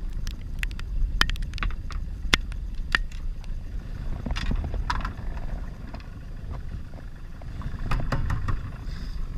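Knocks and taps of the camera being handled and moved around in a small fiberglass boat, over a steady low wind rumble on the microphone.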